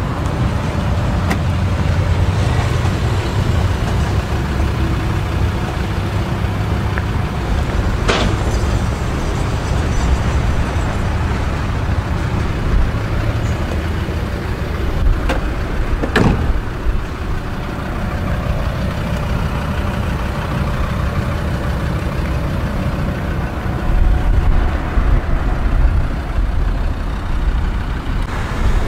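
Steady low motor-vehicle rumble, with a few sharp clicks about eight seconds in and twice around fifteen to sixteen seconds in.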